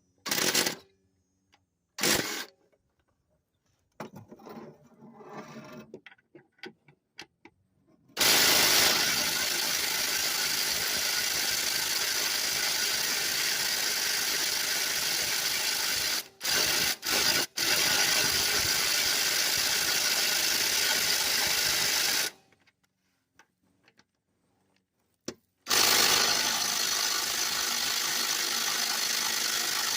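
Cordless impact wrench hammering on a seized lawnmower bolt: two short bursts, then a long run of about fourteen seconds with two quick breaks, and another run of about five seconds near the end. The bolt is not coming loose.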